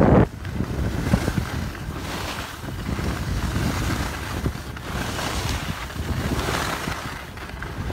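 Wind rushing over a phone microphone as a skier goes downhill, with skis hissing over the snow in swells that come and go.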